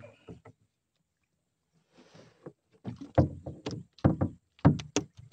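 Water splashing in a run of short, sharp splashes and knocks that begins about three seconds in, as a gill net and its catch are pulled up out of the water.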